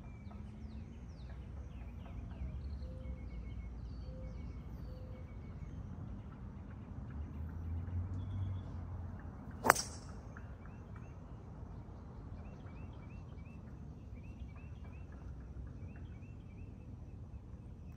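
A 3-wood strikes a golf ball once, a single sharp impact almost ten seconds in; the shot was caught thin, on the verge of topping. Birds chirp repeatedly throughout over a low steady rumble.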